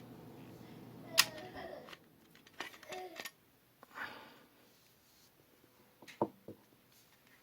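Handling of an Umarex VP9 CO2 BB pistol as it is being disassembled: a sharp click about a second in, several lighter clicks, a short scrape, and two more clicks near the end. A low steady hum stops about two seconds in.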